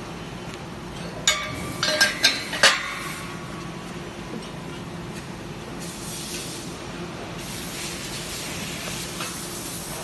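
Metal striking metal: a run of sharp clinks and clanks, about four within a second and a half, each ringing briefly. From about six seconds in, a steady hiss follows.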